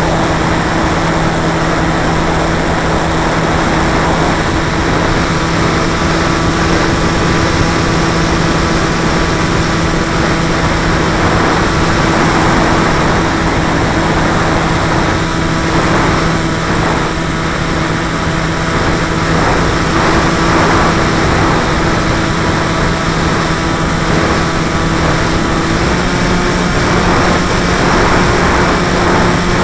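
Model aircraft's motor and propeller heard from a camera on board, a steady drone over a rush of wind noise. The pitch steps up slightly near the end.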